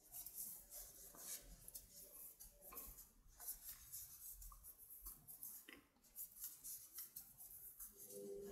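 Faint, irregular scratchy rustling of yarn drawn over and through the stitches by a metal crochet hook as double crochets are worked.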